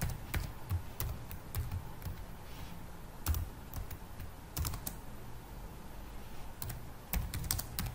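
Computer keyboard typing: irregular keystrokes in small clusters with short pauses between, over a low steady hum.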